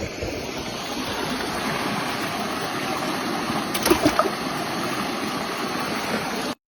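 Steady rush of flowing water from a rain-swollen small river, with a brief knock or rattle about four seconds in.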